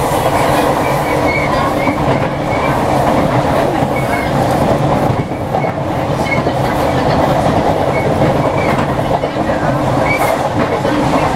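Inside a ScotRail Class 318 electric multiple unit on the move: a steady rumble of wheels on the rails, with short faint high squeaks now and then.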